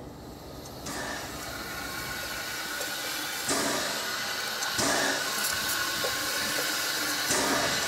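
Steam hissing from the New Zealand Railways F-class tank locomotive F13, growing louder, with a few stronger gusts.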